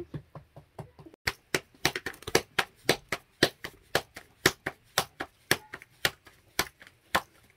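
A spoon tapping as it spreads chopped leek filling over bolani dough, striking through to the metal tray beneath, in quick even taps about four a second.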